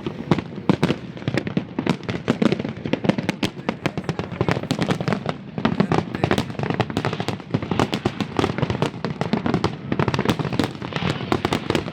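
Fireworks going off in a dense, continuous barrage of bangs and pops, several a second.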